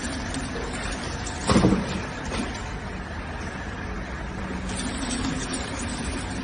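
Conveyor-type snack packing machine (LB-320) running with a steady mechanical noise, with one louder knock about a second and a half in.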